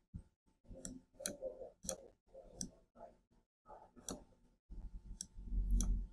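Computer mouse clicking about seven times, sharp separate clicks a second or so apart, while an image is selected and resized in a web editor. A low rumble comes in near the end.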